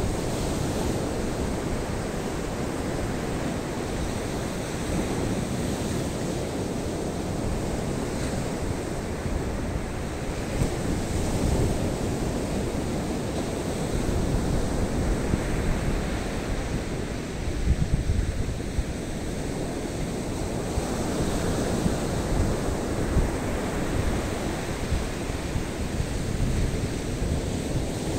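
Rough sea surf breaking on a sandy beach: a steady wash of waves that swells louder a few times, with wind buffeting the microphone.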